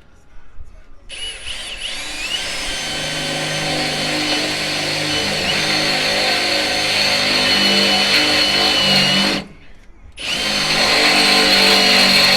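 Milwaukee cordless drill boring a hole in steel, running steadily for about eight seconds, stopping briefly, then running again.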